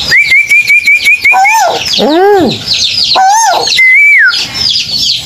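Birds calling loudly and close: a fast run of about eight short chirps on one pitch, then repeated short whistled notes that rise and fall, one of them a deeper arching call, over steady higher chirping.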